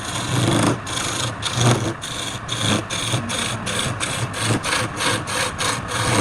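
A hand tool worked back and forth on wood, rasping or sawing in quick even strokes, about three a second, getting slightly faster toward the end.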